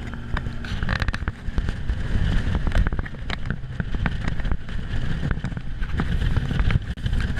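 Bass boat running fast over open water, with wind buffeting the microphone and a steady run of sharp thumps and crackles over a low rumble.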